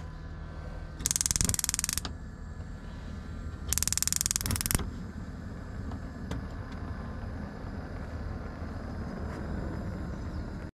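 Gas hob's electric spark igniter clicking rapidly in two bursts of about a second each, the burner being lit under a pot, followed by the steady sound of the lit burner.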